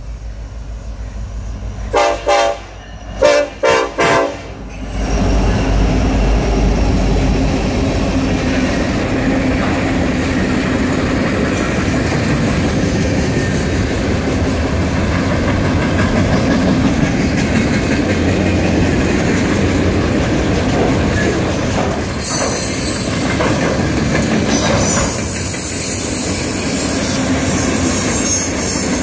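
Norfolk Southern freight train passing close by. The locomotive horn sounds a few short blasts about two seconds in, then the locomotives go by with a deep rumble and the freight cars roll past with a steady clatter of wheels on rail. High-pitched wheel squeal rises near the end.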